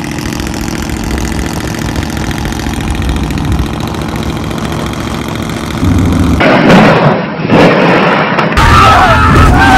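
Pickup truck engine running steadily as the truck cruises along a road. About six seconds in it cuts to a much louder, rough stretch of noise, with wavering high tones near the end.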